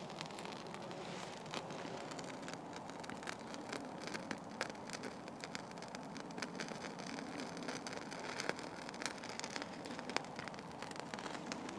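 Fat rope fire-starter tinder burning with a small open flame, giving off irregular small crackles and pops over a faint steady hiss.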